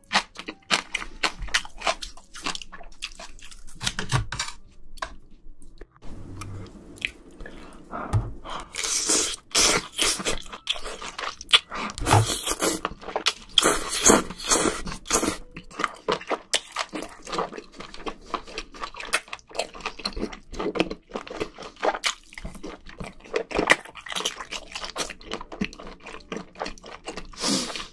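Close-miked eating sounds of spicy scallops and octopus: wet chewing, lip smacks and slurps. A run of louder, hissing slurps comes between about nine and fifteen seconds in.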